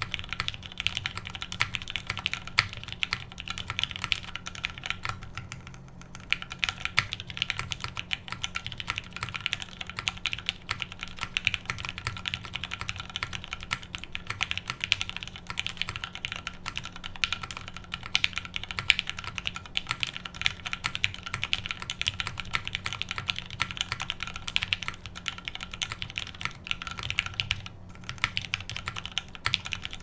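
Continuous typing on a JJW Derivative R1 custom mechanical keyboard: many keystrokes a second, the clicks and bottom-outs of lubed Gateron Milky Black linear switches in a top-mounted, undampened polypropylene plate under GMK keycaps. There are short pauses about six seconds in and a couple of seconds before the end.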